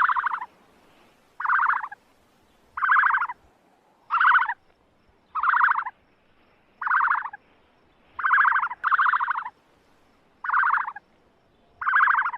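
A frog calling: about ten short pulsed calls, evenly spaced roughly a second and a half apart, two of them running close together near the two-thirds mark.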